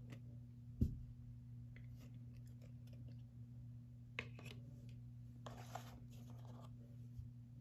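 Trading cards being handled and laid on a wooden table: a light knock about a second in, a few small clicks, and a short card-on-wood scrape a little before the end, over a steady low hum.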